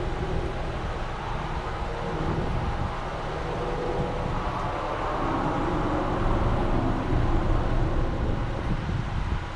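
Car engine idling with a steady low rumble, growing somewhat louder past the middle.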